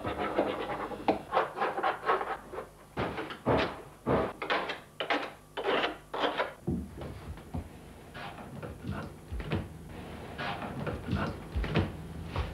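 Zinc sheet being cut by hand with metal snips along a curved line for a stone-cutting template: an irregular run of short, sharp cutting strokes, several a second.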